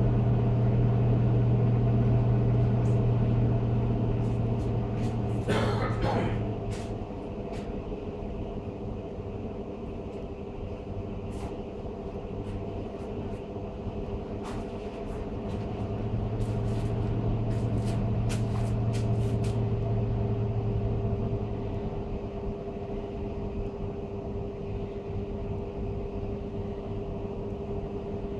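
Blower door fan running with its Ring C flow ring, depressurising the house: a steady hum with several fixed tones. It drops in level a few seconds in, rises again in the middle and eases back down as the controller adjusts the fan speed toward a 40 Pa target building pressure. A brief rustle comes about six seconds in.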